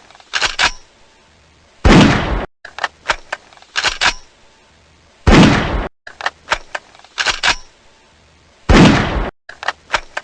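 Pistol being cocked, a quick run of sharp metallic clicks from the slide, followed by a single loud gunshot; the cock-and-fire cycle repeats, giving three shots about three and a half seconds apart.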